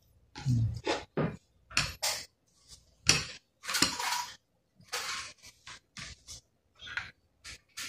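Hands handling laptop parts: an irregular string of short clinks, taps and scrapes as a 2.5-inch SATA SSD is pressed into place in the laptop's drive bay and other parts are moved aside.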